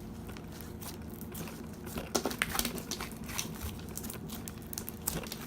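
Slime being squished and worked by hand, giving irregular sticky clicks and crackles, busiest about halfway through.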